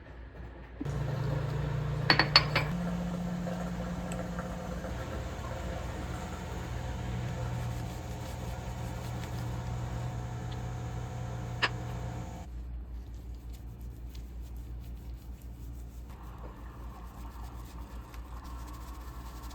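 Sabre metal cutlery clinking: a quick cluster of clinks about two seconds in and a single clink near twelve seconds. Under them runs a steady hum that starts about a second in and cuts off suddenly near twelve seconds.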